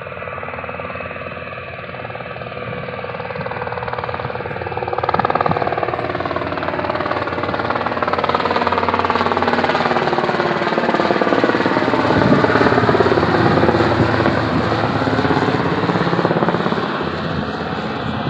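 Light helicopter with a two-blade main rotor flying low overhead: a steady, rapid rotor chop over the engine, growing louder to a peak about twelve seconds in as it passes, then easing off slightly.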